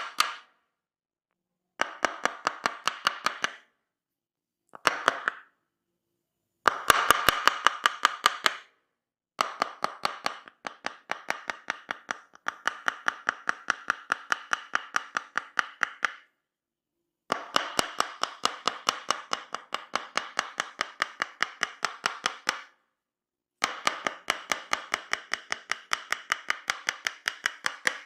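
Tok Sen massage: a wooden mallet tapping a wooden wedge held against the body, in quick runs of sharp, ringing wooden taps, about seven a second. Each run lasts one to several seconds, with short pauses between.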